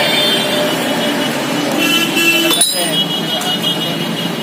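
Steady background street noise of passing traffic, with distant voices, that drops out for a moment a little over halfway through.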